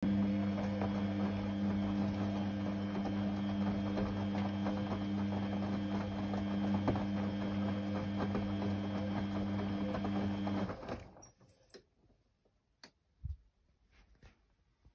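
Beko D2 8101E front-loading washing machine in its main wash: the drum turns with a steady motor hum while the wet laundry and water slosh and tumble. About eleven seconds in the motor cuts out and the drum comes to rest, leaving a few faint clicks and one soft knock.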